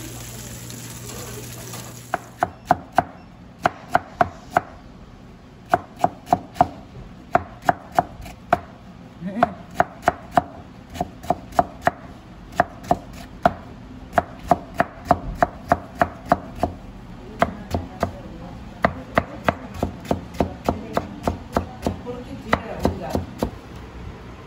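A large kitchen knife julienning white radish on a plastic cutting board: sharp strikes in quick runs of a few cuts each, with brief pauses between. It comes after about two seconds of steady hiss from fish grilling.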